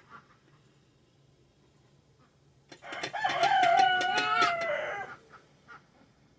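A rooster crows once, a single loud drawn-out call of about two and a half seconds that starts a little under three seconds in and tails off slightly in pitch at the end.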